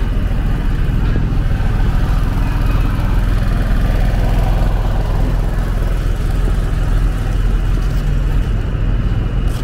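Busy city street ambience: a steady rumble of road traffic.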